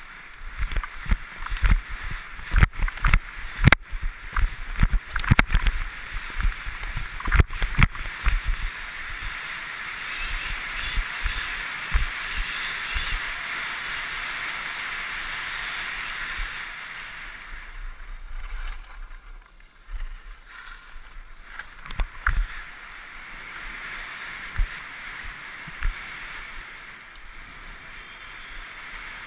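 Skis hissing and scraping over packed snow, picked up by a GoPro helmet camera, with many sharp thumps and knocks from jolts to the camera over the first several seconds. A steadier hiss of gliding follows, then quieter stretches with a few knocks near the end.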